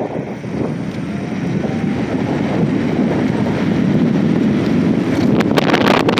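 Wind buffeting the microphone on a fast ride, a steady rush that grows a little louder and crackles near the end. A faint rising whine, the Jetson Bolt Pro's electric motor speeding up, shows about a second in.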